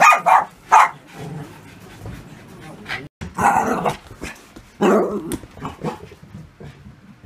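Bichon Frise dogs barking and growling in short bursts, with a brief cut-out about three seconds in.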